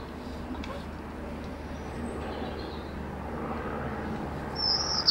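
Steady low rumble of distant road traffic. Near the end a bird starts a high whistle.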